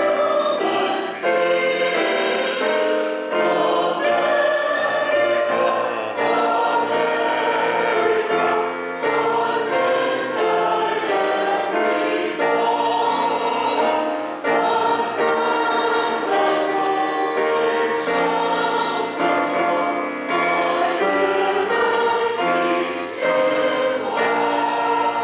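A choir singing a hymn, with sustained notes changing every second or so. The singing stops right at the end.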